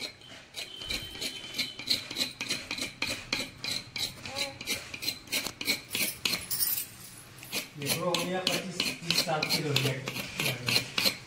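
A small knife scraping the leftover husk fibre off a whole coconut's shell in quick, even strokes, about three a second, with a short lull around the middle.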